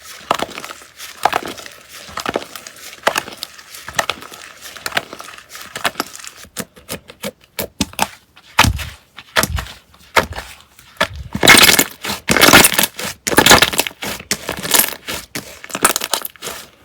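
Slime being squeezed and poked by hand, making quick irregular crackling and popping clicks, with louder bunches of pops in the second half.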